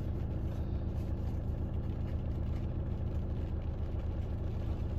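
Vehicle engines idling in traffic, heard from inside a car's cabin: a low, steady rumble with an even pulse.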